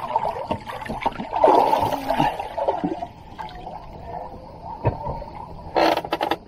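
Seawater splashing and lapping around a sailboat's stern swim ladder, with the strongest splashes about one and a half to two and a half seconds in. A short scuffing noise comes near the end.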